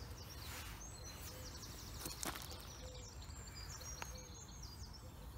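Quiet outdoor ambience with birds singing: short high chirps and quick trills, over a low steady rumble. A few faint clicks come through as well.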